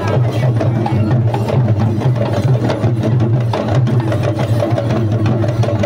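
Traditional Sri Lankan procession drums beating a fast, dense rhythm over a steady low hum.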